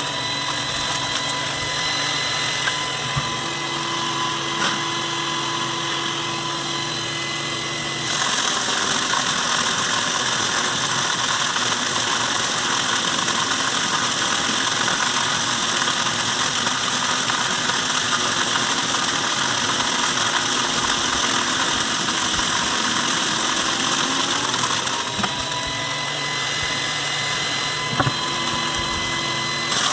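Electric wood chipper running as a corn cracker: a steady motor whine, then about eight seconds in a louder, rougher rush as whole corn kernels are fed through and cracked, lasting some seventeen seconds. Near the end the rush drops away and the motor's whine climbs back up in pitch.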